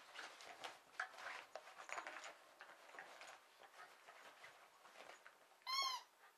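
A terrier rooting and snuffling in a blanket at a rubber squeaky toy, with soft rustling, then one loud squeak from the toy near the end that rises and falls in pitch.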